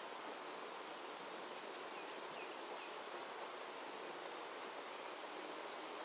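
Steady outdoor background hiss with a few faint, short bird chirps, three of them in quick succession about two seconds in.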